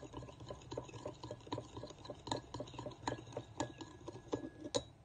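Metal spoon stirring a cornstarch, soy sauce and oyster sauce slurry in a ceramic bowl, clinking against the bowl in quick steady strokes, with a few sharper clinks near the end before it stops.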